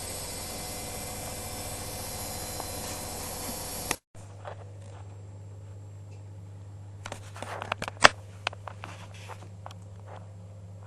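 Privileg Sensation 9415 washing machine running with a steady mechanical noise and several steady whining tones, which cuts off suddenly about four seconds in. A quieter steady low hum follows, with a cluster of clicks and knocks about three seconds later, one sharp knock the loudest.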